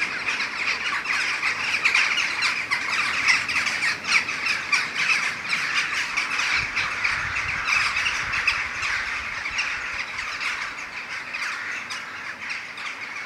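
A large flock of crows calling all at once, many overlapping calls in a dense, continuous chorus that thins slightly toward the end.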